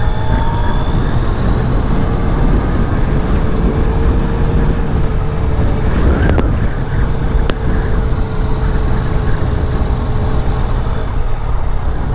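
Yamaha FJ-09's three-cylinder engine running at a steady pace under heavy wind rumble on the microphone. Two brief clicks come a little after halfway.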